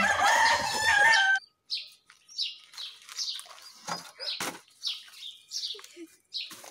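A rooster crowing, a loud held call that ends about a second and a half in, followed by short high chirps repeating about twice a second. A couple of sharp clicks sound about four seconds in.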